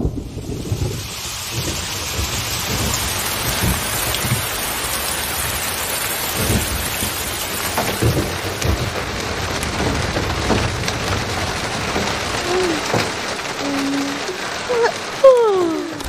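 Steady rain with several low rumbles of thunder. Near the end, a few short falling vocal sounds as the sleepy children yawn.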